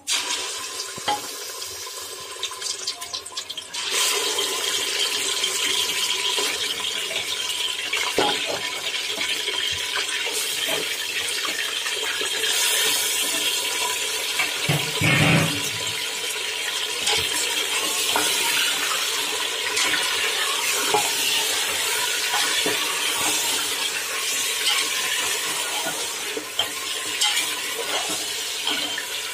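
Chunks of raw meat sizzling in hot ghee in an aluminium pressure cooker. The frying hiss grows louder about four seconds in as more meat goes in, then carries on steadily, with a dull knock about halfway through.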